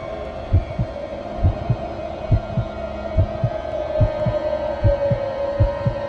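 Slow heartbeat sound effect: paired low thumps, lub-dub, repeating a little under once a second over a steady droning tone.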